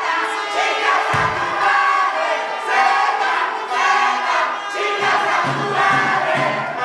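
Wrestling arena crowd shouting and chanting over background music, with a brief low thud about a second in.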